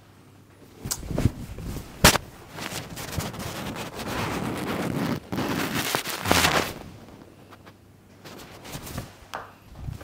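Hands-on head massage: a few light knocks, then one sharp smack about two seconds in, followed by several seconds of brisk rubbing and rustling.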